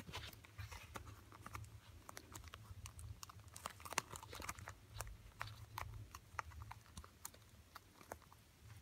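Faint, irregular clicks and rustles of a replacement ear pad's plastic tabs being worked into the retainer ring of a Panasonic RP-HTX7 headphone ear cup.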